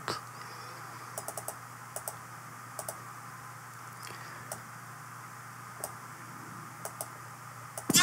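Scattered clicks of a computer mouse and keyboard, some in quick pairs, over a faint steady low hum.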